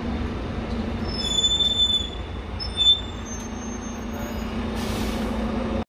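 Bus engine running with a steady low hum. The brakes squeal in several high-pitched tones from about one second in to about three seconds in. About five seconds in comes a short hiss of air.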